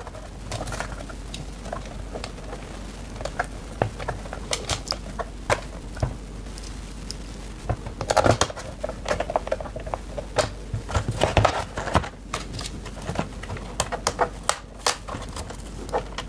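Irregular small plastic clicks and taps as a precision Torx screwdriver drives screws into the plastic underside of a controller case and fingers handle the case. Denser runs of clicking come about eight and about eleven seconds in.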